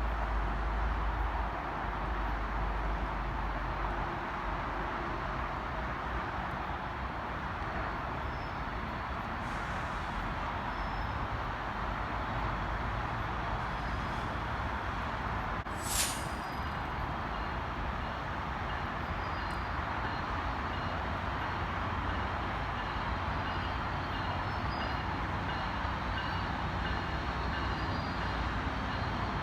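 Passenger train running by, giving a steady wash of mechanical noise over a low rumble, with one brief high squeal that drops in pitch about halfway through.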